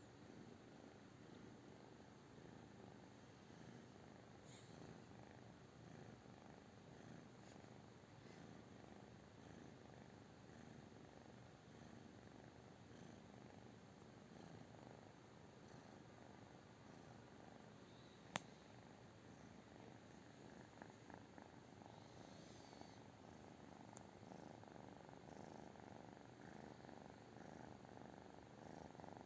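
British Shorthair cat purring softly and steadily, close to the microphone. A single sharp click comes about eighteen seconds in.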